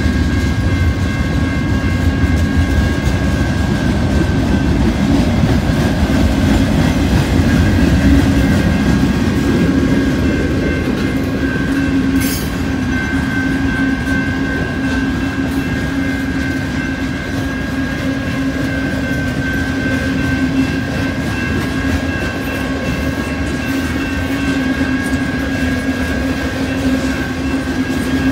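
Freight train cars rolling past close by, a heavy rumble with wheels clattering over the rails, and a steady high ringing tone over it. A single sharp click about twelve seconds in.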